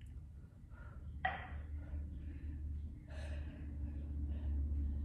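A woman breathing hard from exertion while pressing dumbbells, with a few sharp exhales, the two strongest about a second and three seconds in. A low steady hum runs underneath.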